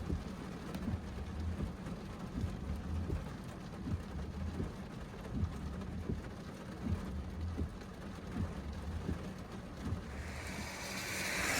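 Thunderstorm rain falling, with irregular drop ticks over a steady low rumble. Near the end a broad hiss swells up quickly and grows louder.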